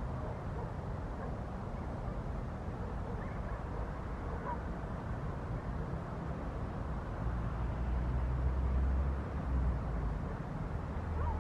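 Low, steady rumble of a distant aircraft, growing stronger in the low end over the second half as it draws nearer. A few faint short chirps sound over it.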